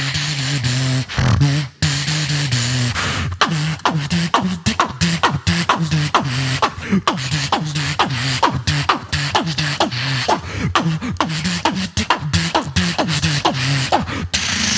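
Beatboxing into a handheld microphone: a fast run of mouth-made drum clicks over a low hummed bass line that steps between a few notes, both sounding at once.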